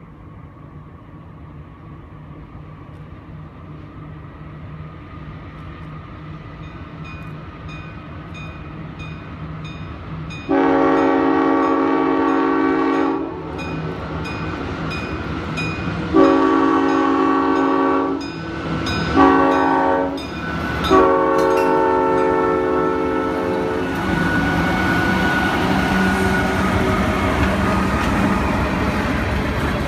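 Diesel freight locomotives approaching, their engine rumble growing steadily louder. The horn then sounds long, long, short, long, the standard grade-crossing warning. Loaded covered hopper cars follow, rolling past with steady wheel-on-rail noise.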